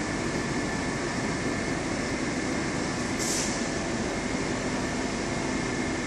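Steady rushing background noise with a faint hum, as from an aquarium hall's ventilation and pump machinery, with a short high hiss about three seconds in.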